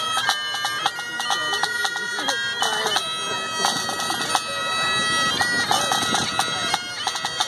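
Great Highland bagpipes playing a marching tune, held melody notes over steady drones, broken by quick grace notes.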